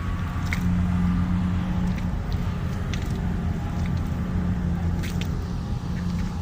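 Steady low mechanical hum, like a large engine or machine running, with a few short sharp clicks or knocks on top.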